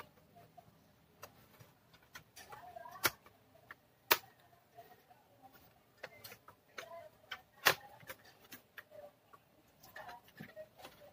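Plastic clips of an Asus laptop's keyboard deck snapping loose as it is pried up with a plastic pick: scattered light clicks and scrapes, with three sharp snaps about 3, 4 and 7.5 seconds in.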